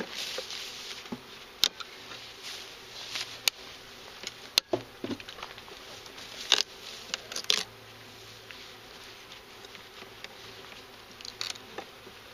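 Package of honeybees buzzing with a steady low hum, with a few sharp clicks and short hissing bursts over it.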